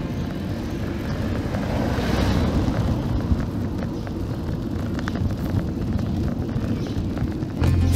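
Wind buffeting the microphone, a dense low rumble over outdoor street ambience with a few faint clicks. Music comes back in near the end.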